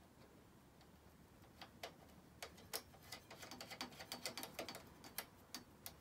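Small metal clicks and taps, irregular, as the rear drum brake's anchor arm clip, bolt and nut are fitted by hand around a bicycle chainstay. They start about a second and a half in.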